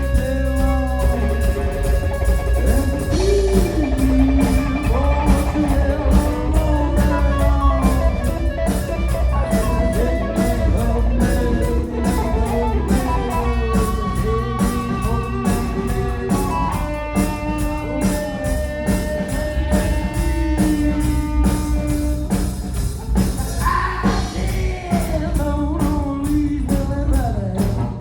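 Live rock trio jamming: a lead guitar line with sliding, bent notes over bass guitar and a drum kit keeping a steady beat.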